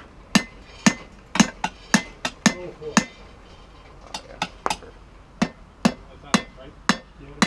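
Hand hammer striking a hot railroad spike on an anvil, forging it, at about two blows a second with a short pause about three seconds in. Each blow is a sharp metallic strike with a brief ring.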